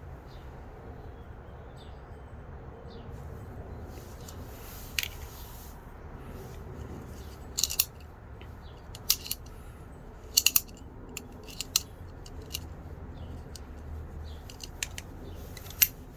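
Utility knife being handled, its plastic and metal mechanism clicking: about ten sharp clicks at irregular intervals, the first about five seconds in, over a low steady hum.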